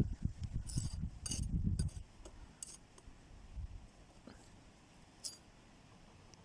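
Several light metallic clinks over low, irregular handling knocks that die away after about two seconds.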